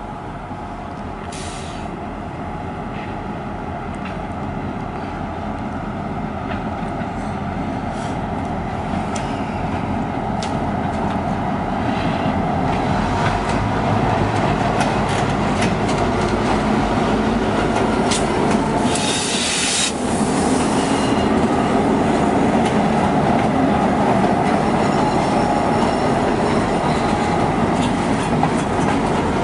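South Shore freight diesel locomotive running as it approaches, growing steadily louder over the first half, then passing close by with freight cars rolling along the siding behind it. A brief hiss comes about two-thirds of the way through.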